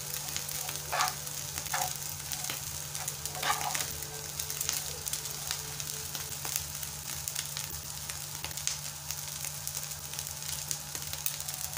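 Small dried omena fish sizzling steadily in a lot of hot oil in a pan, with fine popping and a spoon stirring and scraping through them now and then, as they fry until crunchy.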